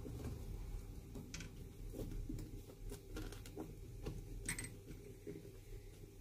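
Faint scratching and a few light clicks of fingers picking at the heel of a leather golf shoe held sole-up on a cobbler's jack.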